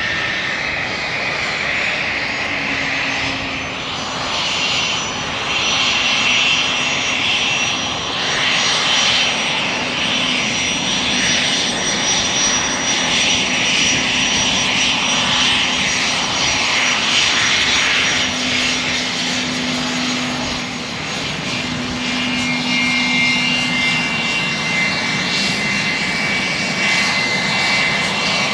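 Embraer Legacy 550 business jet's turbofan engines running on the airfield: a steady rush with high whining tones, which shift slightly in pitch a little over twenty seconds in.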